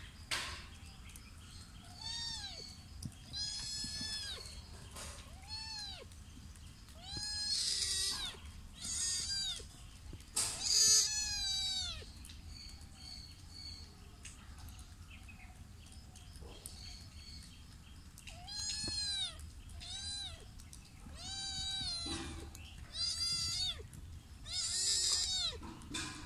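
A cat meowing over and over in short high-pitched meows, each rising and then falling in pitch. The meows come in two runs with a pause of several seconds between them.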